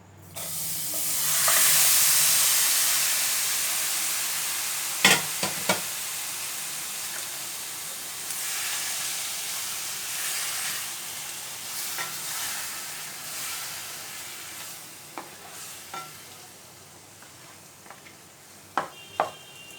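Yogurt-marinated chicken pieces going into a hot, dry frying pan with no oil, sizzling loudly at once, then slowly dying down. A utensil knocks against the pan a few times, in a cluster about five seconds in and again near the end.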